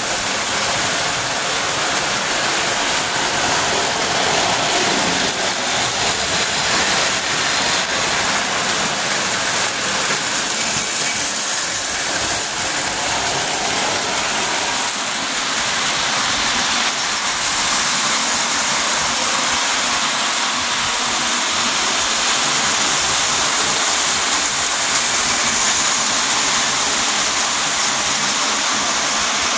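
Lionel post-war O-gauge tinplate trains running on metal three-rail track: the steady mechanical whir and rattle of their motors and wheels.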